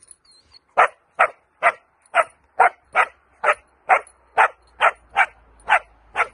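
Puppy barking over and over in a steady rhythm, about two sharp barks a second, starting about a second in.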